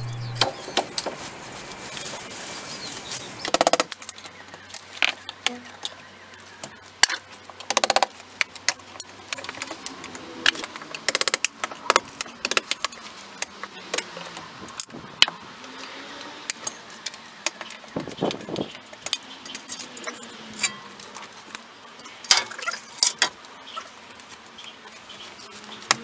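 Hand-tool demolition work at an old brick wall and its window: irregular sharp taps, knocks and clinks, with a few heavier strikes.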